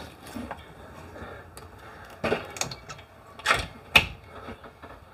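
Kennel door being shut and its metal barrel bolt slid across: a handful of clicks and knocks, the sharpest about four seconds in.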